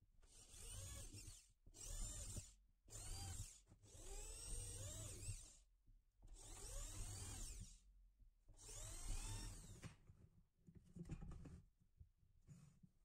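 Corded electric drill boring into a wooden board in about six short runs, the motor's pitch rising and falling as the trigger is squeezed and eased off. The runs stop after about ten seconds.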